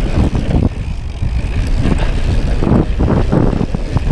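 Mountain bike riding fast down a dirt forest trail, heard through the action camera riding along: a steady rumble of tyres and wind on the microphone, broken by frequent knocks and rattles from the bike over bumps.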